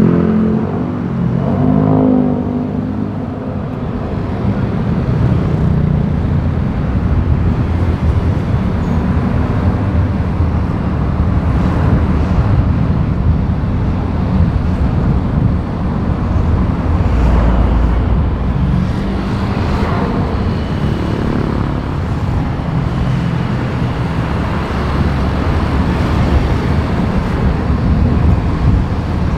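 City road traffic noise: a continuous low rumble of vehicle engines and tyres, swelling now and then as vehicles pass.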